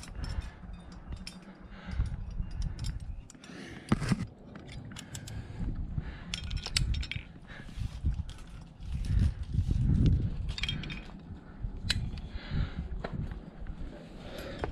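Metal climbing gear clinking irregularly as the climber moves: carabiners and quickdraws jingling against each other on the harness, with uneven low buffeting on the microphone.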